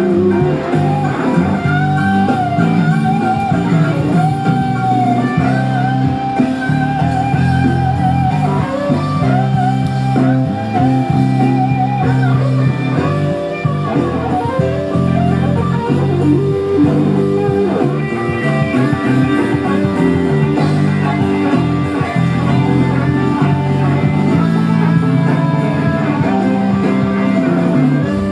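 Blues-style guitar music: a wavering, bent lead line over a steady backing.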